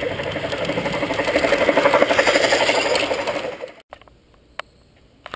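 Garden-railway model steam locomotive running close by on the track: a fast, steady mechanical chatter from its motor, gearing and wheels. It cuts off abruptly about four seconds in, leaving a quiet background with a few faint clicks.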